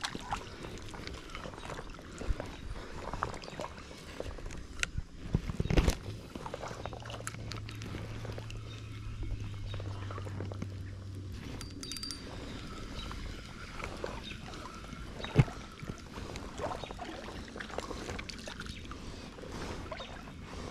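Creek water sloshing and splashing around a person's legs as they wade in waders, with occasional sharper splashes, two of them louder. A steady low hum sits under it for a few seconds in the middle.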